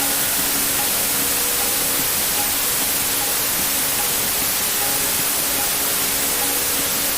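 Steady white-noise hiss, even and unbroken, with faint soft music tones held underneath.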